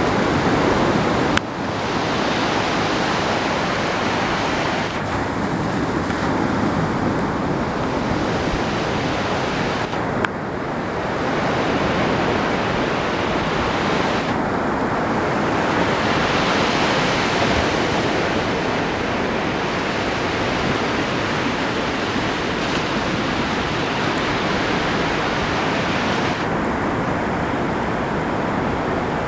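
Ocean surf: waves breaking and washing on a beach in a continuous rushing hiss that swells and eases. It shifts abruptly with a brief click twice, about a second in and again about ten seconds in.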